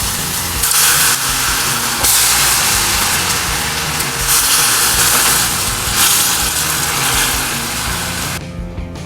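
A loud, even hissing noise that swells and eases in several stretches and cuts off near the end, over background music.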